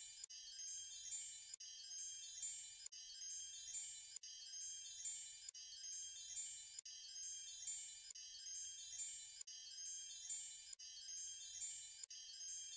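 Steady tinkling of many high, bell-like chime tones, a sparkly wind-chime sound that repeats in a loop about every second and a third.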